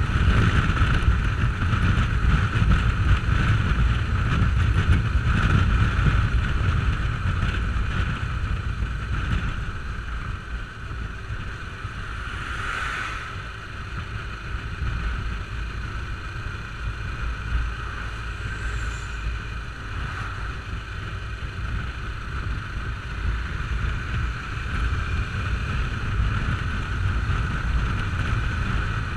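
Motorcycle riding at highway speed: wind rushing over the microphone with the engine running steadily beneath it, easing off a little midway and building again near the end.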